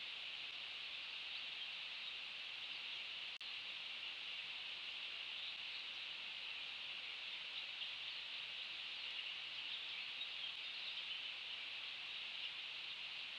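Steady outdoor background hiss, high-pitched and unchanging, with no distinct calls, and a momentary dropout about three seconds in.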